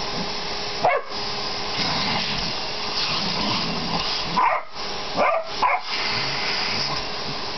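Vacuum cleaner running steadily through its crevice tool while a Border Collie–Labrador mix dog barks at the nozzle, short barks four times: once about a second in, then three close together past the middle.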